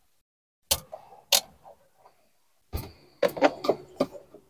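Sharp plastic clicks and knocks as a dashboard wiring connector's clips are pried loose and the dash panel is shifted. Two clicks come in the first second and a half, then a quick run of clicks and knocks near the end.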